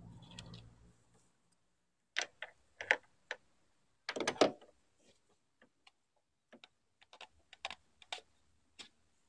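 Hard plastic clicks and knocks from the engine's crankcase breather housing and its hoses as gloved hands work it loose and pull it free. The loudest rattle comes a little after four seconds in, with scattered lighter clicks after it.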